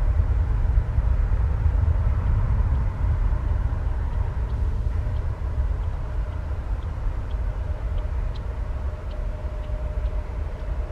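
Boeing 737 jet engines at high thrust as the airliner rolls away down the runway on its takeoff run: a deep rumble with a faint steady whine, slowly fading as it recedes.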